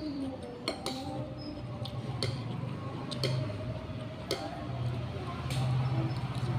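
Metal spoon clinking and scraping against a ceramic plate while scooping rice, a handful of sharp irregular ticks over a steady low hum.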